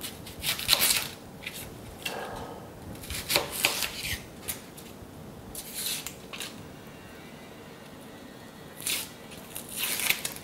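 Dry papery skin being torn and peeled off a red onion with a small knife: short crackling rasps every second or two, with a pause of about two seconds before a last burst near the end.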